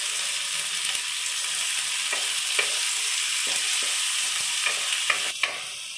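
Chopped tomatoes and onions sizzling in hot oil in a non-stick kadai, with a spatula stirring and clicking against the pan. The sizzle dies down near the end.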